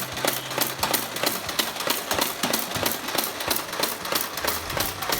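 Nerf N-Strike Mega blaster firing darts in rapid automatic fire: a fast, even clatter of several shots a second.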